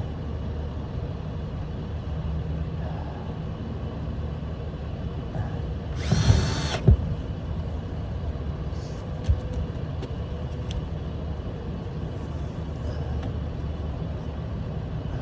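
Steady low mechanical rumble, broken about six seconds in by a loud hiss lasting under a second, followed right after by a sharp knock and another single knock a few seconds later.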